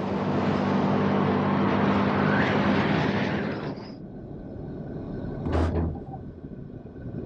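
Pickup truck driving on the road: steady engine hum with road and tyre noise, which drops abruptly to a quieter drone about four seconds in. A brief loud whoosh comes a little over a second later.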